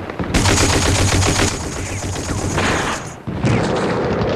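Rapid machine-gun fire in bursts, with a brief break about three seconds in before the firing resumes.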